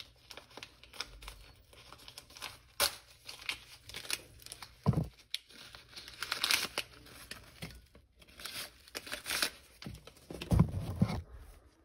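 Paper or plastic packaging being crinkled and torn open by hand, rustling with scattered clicks, and a few low thumps of things being handled, the loudest near the end.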